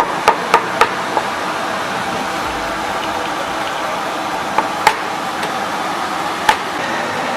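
Steady background noise of a busy roadside food stall, with a few sharp clinks and knocks: three in quick succession near the start and two more later on.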